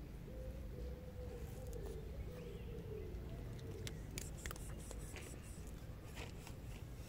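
Tortoiseshell cat eating food off the ground, its chewing heard as scattered sharp crunches over a low outdoor rumble.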